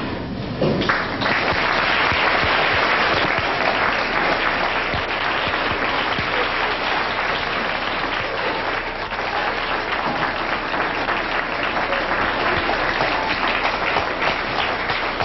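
Audience applauding: dense, steady clapping that rises about a second in and keeps up without a break.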